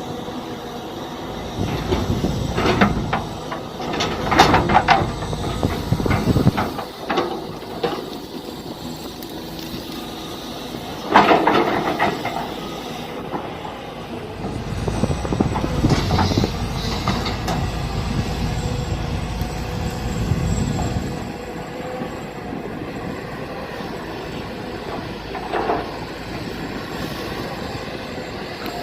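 Mini excavator running and digging: a steady engine and hydraulic drone that swells at times under load, broken by several knocks and scrapes, the sharpest about eleven seconds in.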